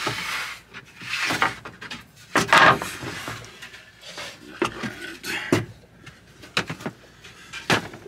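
Handling noise: scattered knocks, clicks and rustling swells, the loudest about two and a half seconds in.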